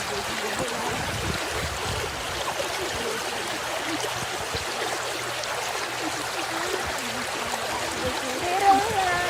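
River water rushing steadily around a raft. A voice calls out near the end.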